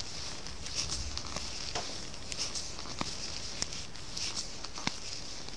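Circular knitting needles clicking softly and irregularly, with wool yarn rustling, as stitches are worked off one needle onto the other.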